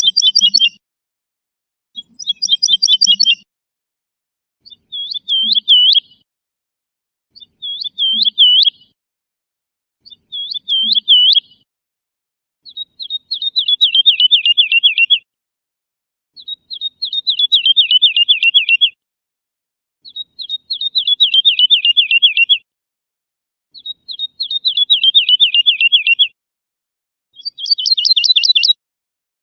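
A lark singing in separate phrases, each a quick run of repeated notes lasting one to two and a half seconds with short pauses between. The first phrases are short and high, the later ones longer and falling in pitch.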